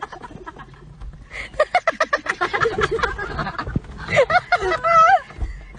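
A person laughing hard in a quick run of short bursts, then a high-pitched, wavering squeal of laughter near the end.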